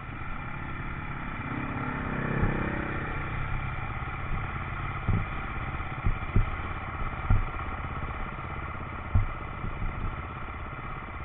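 Enduro motorcycle engine running steadily at a low idle-like speed, with a brief rise in revs about two seconds in. Several sharp knocks or clunks come in the second half.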